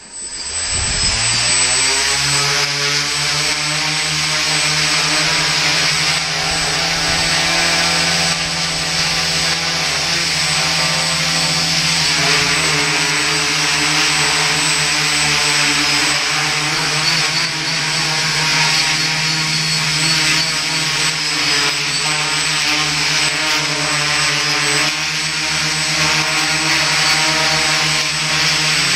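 Quadcopter brushless motors and propellers spinning up, rising in pitch over the first couple of seconds, then running with a steady, high whine. Their pitch wavers a little as the flight controller adjusts motor speeds to hold roll and pitch.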